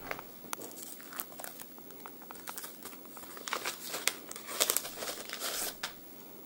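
Packaging being handled, crinkling and rustling in irregular bursts that grow louder and denser after about three and a half seconds, then stop shortly before the end.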